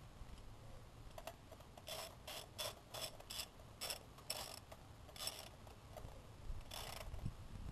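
A ratchet on a long extension and spark plug socket clicks in about ten short, irregular bursts as a spark plug is turned in its well in the cylinder head.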